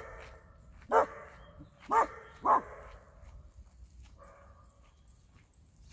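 A dog barking four times in sharp single barks, about a second apart at first and then two in quick succession.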